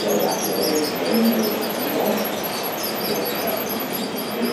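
G-scale model train running on a curve of overhead track, its wheels squeaking and chirping over a steady rolling noise.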